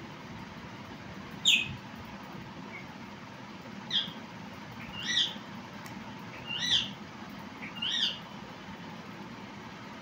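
Baby Indian ringneck parrot chick giving five short, high calls, spaced one to two and a half seconds apart, while being syringe-fed, fussing at a feeding it is not yet used to.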